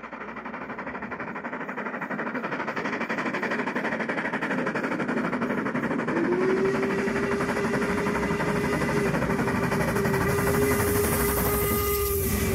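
LMS Black Five steam locomotive 44871 running with its train, growing louder over the first few seconds. From about halfway through it sounds one long, steady whistle blast.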